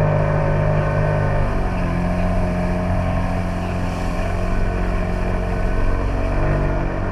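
Jet ski engine running steadily, its speed stepping up a little about a second and a half in and easing off near the end.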